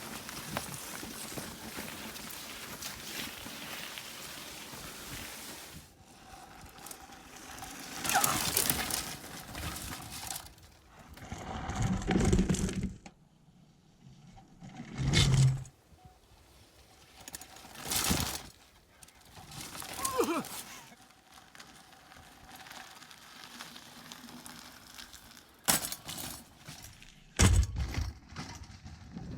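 A road bike ridden over a rough forest trail: rushing noise, then irregular loud rattles and knocks as it goes over bumps.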